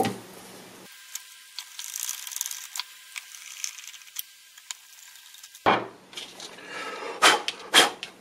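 Hand screwdriver turning screws into a speedometer mounting plate on a plastic instrument cluster, with faint scraping and small ticks. About six seconds in come louder sharp clunks and knocks as the plastic cluster is handled and moved on the bench.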